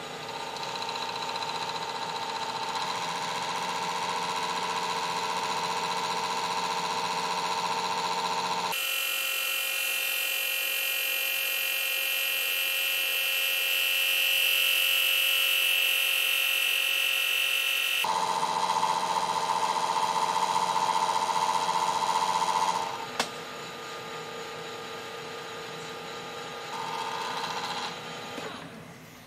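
Emco Super 11 lathe running with a steady whine of motor and gearing while a boring bar takes a light cut inside the jaws of a six-jaw chuck. For a stretch in the middle the sound is played three times faster, so the whine jumps much higher in pitch. Near the end the running quietens, with one sharp click.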